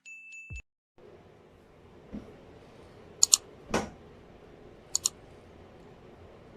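A short electronic beep at the start, then quiet room noise with a few sharp clicks, two of them in quick pairs.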